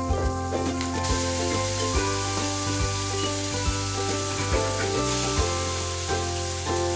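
Curry leaves and a green chilli sizzling in hot oil in a pan, stirred with a wooden spatula near the end, under background music.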